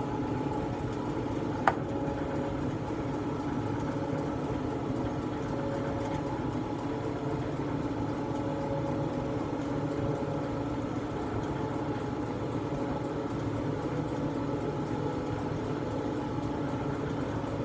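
Steady mechanical hum of a motor or machine running in the background, holding several even tones, with one sharp click about two seconds in.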